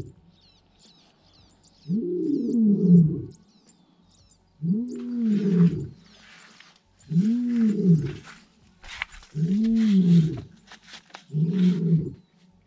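Lion roaring: five deep roars, each about a second long, coming two to three seconds apart. Faint bird chirps are heard in the first few seconds.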